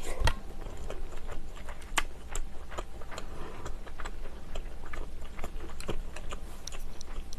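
Close-miked chewing of a mouthful, with many short, irregular wet mouth clicks.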